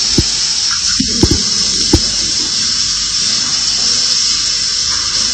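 Shower water running steadily, heard as a hiss through a phone recording made in a bathroom, with a few low knocks in the first two seconds.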